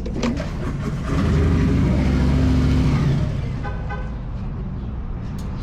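Motorcycle engine running, growing louder about a second in, then easing back after about three seconds, with a few clicks near the start.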